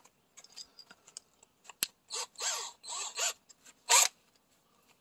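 Cordless drill being readied for a bit: light clicks, then several short whirring bursts with the pitch sliding down and up, and a loud burst near the end.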